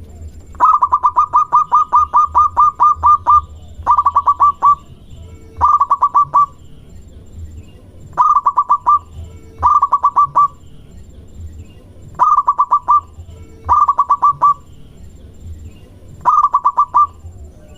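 Zebra dove (perkutut) cooing in repeated bouts of quick, clipped notes. A long run of about a dozen notes comes first, then shorter runs of about five notes every second or two.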